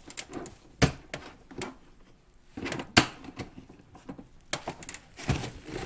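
A few sharp knocks and clicks, the two loudest about one and three seconds in, among softer rustling.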